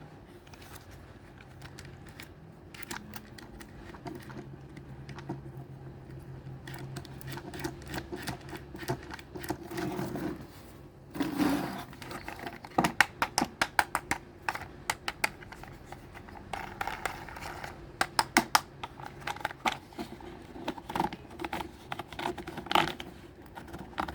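Small toy trucks being handled: quick runs of sharp clicks, rattles and scrapes from hard plastic and diecast parts.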